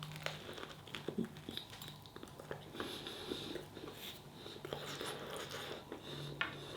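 Faint chewing of a mouthful of burger in a tiger bread bun, with many small irregular clicks.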